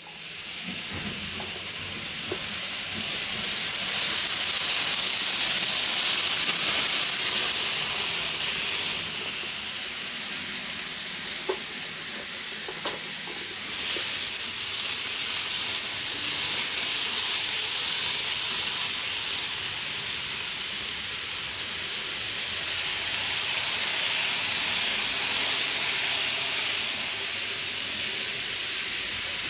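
N gauge model trains running on the layout: a steady hiss of small wheels and motors on the track, swelling louder twice as trains pass, with a few faint clicks.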